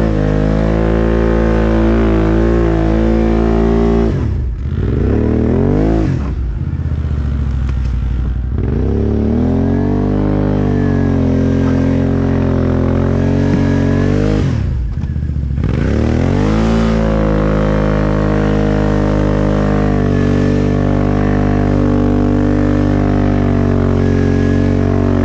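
ATV engine running under load on an uphill climb, revs dropping sharply and climbing back again twice.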